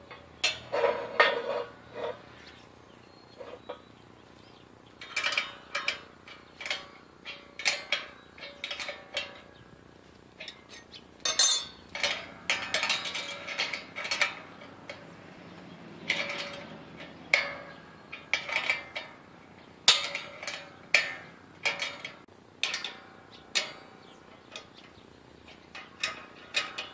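Steel wrenches clinking and scraping on nuts, bolts and the steel frame of a hydraulic shop press as the nuts are tightened by hand. The short metal clinks come at irregular intervals, sometimes several in quick succession.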